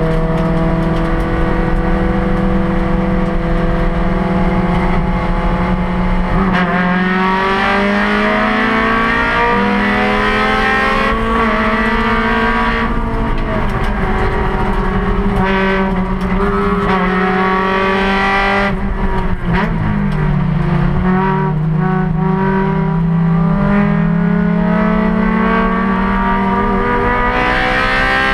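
A Honda Challenge race car's engine under hard load, heard from inside the stripped, roll-caged cabin. Its pitch climbs and drops repeatedly as it is driven through the gears, with a longer dip about two-thirds of the way through.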